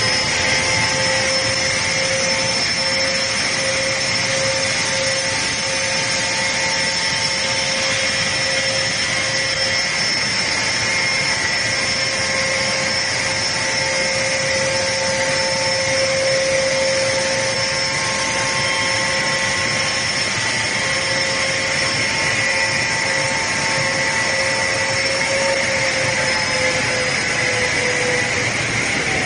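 Woodworking production machinery running steadily: a continuous motor whine over an even mechanical noise, its pitch dipping slightly near the end.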